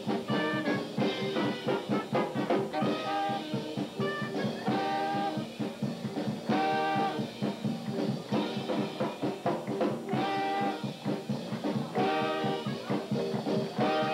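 Jazz band music in swing style: short brass phrases repeating every second or two over a driving drum beat.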